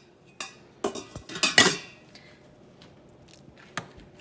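A spoon knocking and scraping against the Instant Pot's stainless steel inner pot while stirring and checking the cooked dal: a couple of light knocks, a louder burst of scraping clinks about a second and a half in, and one more knock near the end.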